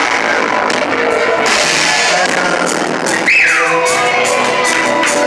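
Live rock band playing, amplified electric guitar with drums. About three seconds in, the full sound drops back and a high tone slides downward.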